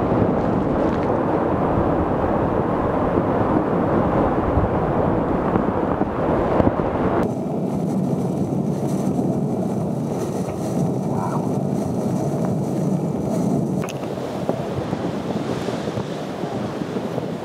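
Hurricane-force wind and breaking storm-surge waves, a steady rushing roar with wind buffeting the microphone. The sound changes abruptly about seven seconds in, when the deep rumble drops out, and again near fourteen seconds.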